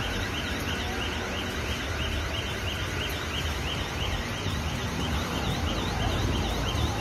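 Car alarm repeating a fast, high warbling chirp about three times a second, with fainter sliding tones under it, over steady street noise from the flooded streets.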